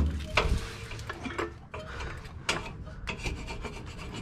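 Hand scraping against the subframe's bushing bore in irregular rasping strokes, a few of them sharper. The bore is being cleaned out so the new solid bushing will fit.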